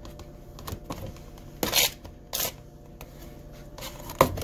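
A knife scraping chopped tomatoes off a flexible plastic cutting mat into a plastic container: a few short scrapes with light plastic clicks and knocks between them.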